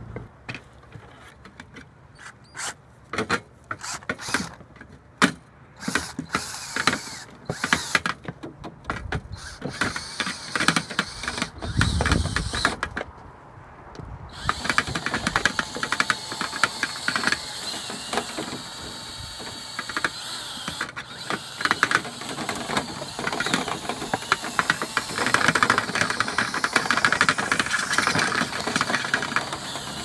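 Rotary cleaning rod spinning inside a lint-clogged rooftop dryer vent, clattering against the metal vent cap as it clears the lint. Scattered clicks and knocks give way about halfway through to continuous rattling.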